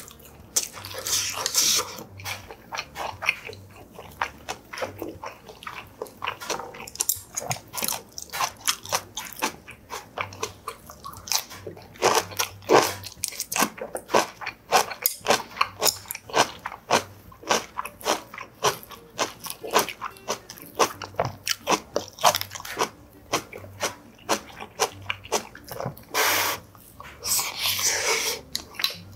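Close-miked eating of Korean vegetable side dishes: chewing and crunching in quick irregular bites, with small clicks of a spoon and metal chopsticks.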